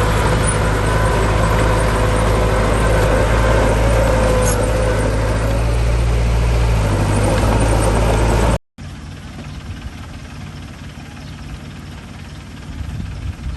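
Heavy diesel earthmoving machinery, a dump truck or bulldozer engine, running loud and steady. About eight and a half seconds in it cuts off abruptly, and after a brief gap a quieter, uneven engine sound follows.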